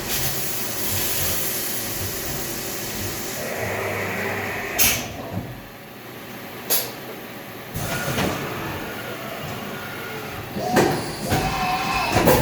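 Haas five-axis CNC mill running, a steady machine hum with a hiss about a second in and a few sharp metallic clanks.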